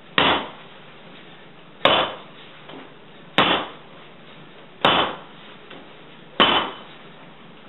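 Wet, sticky French bread dough slapped down hard onto a kitchen counter five times, about once every second and a half: French kneading, the slap-and-fold method of working a very wet autolysed dough.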